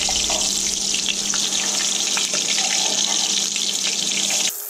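Ladyfish patties frying in a skillet of hot oil: a steady sizzling hiss with scattered crackles, cutting off abruptly near the end.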